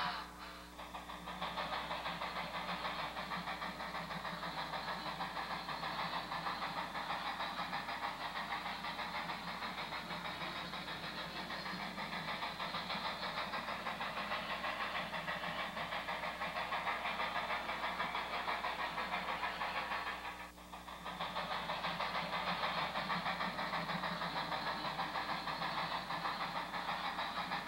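Steam locomotive running steadily, a continuous hissing chuff with faint clatter. It breaks off briefly about twenty seconds in, then picks up again.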